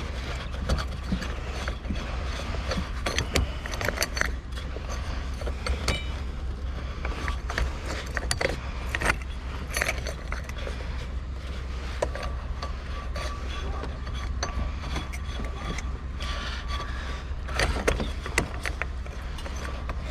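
Irregular clicking and rattling as a light bulb is worked at in a broken lamp socket, over a steady low hum.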